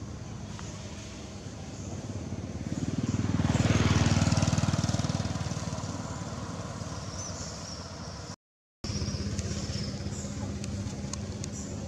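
A motor vehicle passing on the road, swelling to its loudest about four seconds in and fading away over a steady engine hum. The sound cuts out completely for about half a second past the middle.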